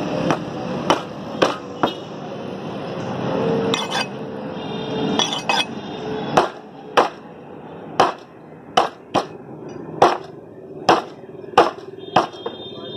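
Butcher's cleaver chopping pork on a wooden block: more than a dozen sharp chops, coming a little under a second apart, and most regular in the second half.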